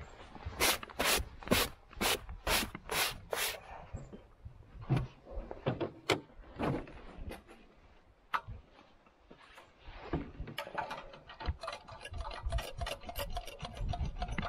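Seven even scraping strokes, about two a second, then scattered knocks and rubbing as gloved hands handle a snow-covered vintage Ski-Doo snowmobile with its hood open. The engine is not running.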